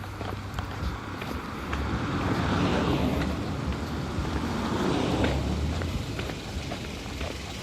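Road traffic: a car passes by, its tyre and engine noise swelling about two seconds in and fading a few seconds later, over wind rumbling on the microphone.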